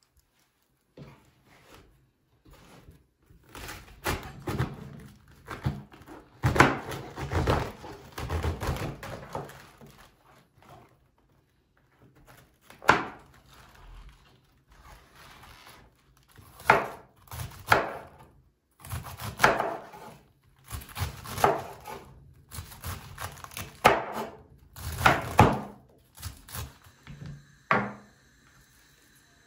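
Kitchen handling sounds: an irregular run of knocks, thunks and rustling as things are moved and set down, some on wood, with a few sharper single knocks in the second half. A faint steady high tone comes in near the end.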